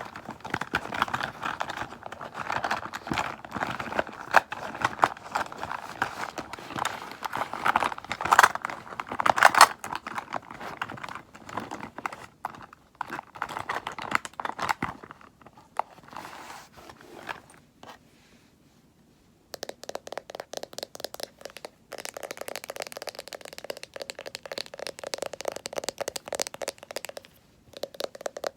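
Cosmetic products handled close to the microphone: crinkling, crackling and scraping with many small taps and clicks. They stop briefly about two-thirds of the way through, then go on as finer, rapid clicking and scratching.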